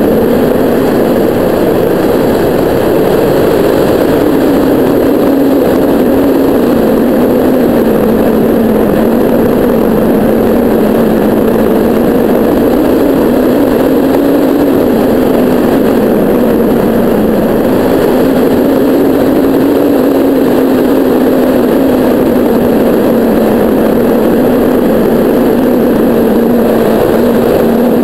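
Rushing airflow on a hang glider in free flight, loud wind noise over the frame-mounted camera's microphone, with a steady low hum that wavers slightly in pitch.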